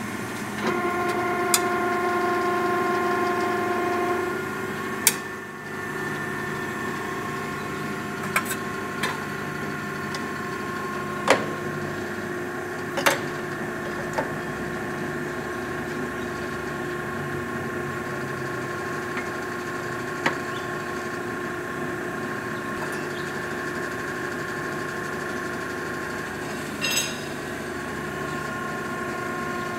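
Hydraulic ironworker's 3 HP motor and hydraulic pump running with a steady hum, louder for about three seconds near the start as the ram works. It is broken by a handful of sharp metallic clicks and knocks as sheet steel is punched and the six-station punch turret is turned.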